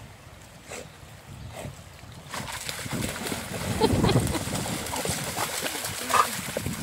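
Labradors splashing through shallow river water as they wade and tug on a stick together, over the rush of the flowing river. The splashing grows louder about two seconds in, with a brief higher-pitched sound about six seconds in.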